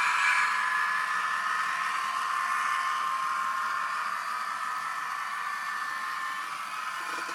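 Dapol N gauge Voyager model train with a DCC sound decoder, its small speaker playing the diesel unit's running sound: a steady whirring hiss with two held tones that slowly sink in pitch as the level eases.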